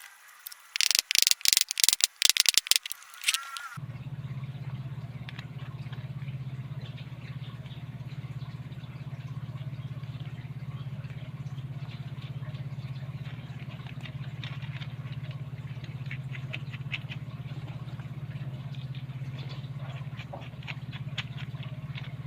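A rapid run of loud, sharp, high-pitched scraping strokes for about three seconds, then a small electric motor running steadily with a low hum and faint light scratching over it.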